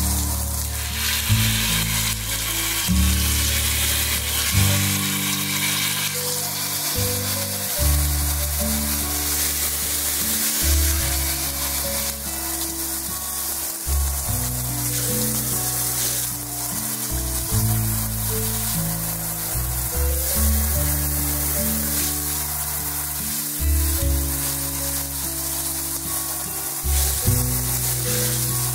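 Multi-mode handheld shower head spraying water into a bathtub: a steady hiss of spray whose character shifts as the spray modes are switched. Background music with low sustained notes plays underneath.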